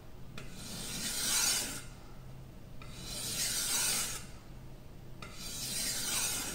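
Steel wakizashi blade pushed along a wet high-grit whetstone in three long sharpening strokes, each a little over a second, with short pauses between.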